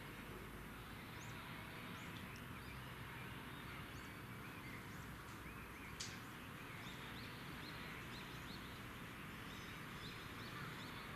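Faint, short high bird chirps, scattered at first and then in a quick run of repeated notes in the second half, over a steady low background hum. A single sharp click about six seconds in.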